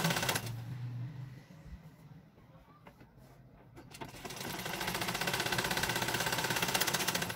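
A black vintage-style sewing machine stitching a folded hem with a fast, even clatter that stops about half a second in. After a few seconds of quieter fabric handling with a few light clicks, it starts stitching again about four seconds in and stops near the end.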